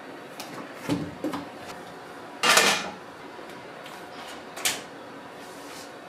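Food being taken out of a plastic zipper bag with chopsticks: a few light knocks and clicks, with a louder half-second plastic rustle about two and a half seconds in and a sharp click near the end.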